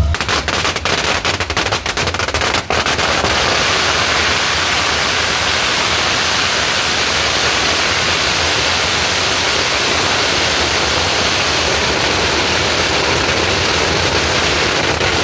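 Firecracker strings going off: separate sharp bangs for the first couple of seconds, then a dense, continuous crackle of rapid-fire explosions that keeps going without a break.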